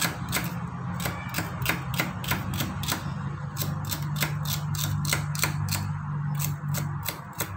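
Kitchen knife chopping celery stalks on a plastic cutting board: a steady run of sharp knocks, about three strikes a second.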